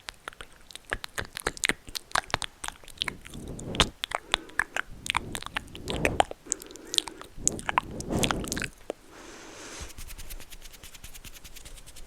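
Close-miked ASMR trigger sounds: a rapid, irregular run of small sharp clicks and crunchy crackles with soft rustling swells, giving way about three-quarters of the way through to a steady soft hiss with faint fine ticks.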